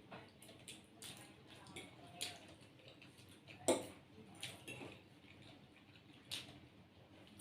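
Faint sounds of eating Maggi instant noodles: scattered short clicks and wet smacks of cutlery and mouths, the loudest about halfway through.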